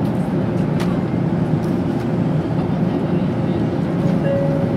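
Steady low hum and rumble inside an N700-series Tokaido Shinkansen car standing at a station platform, with a brief steady tone about four seconds in.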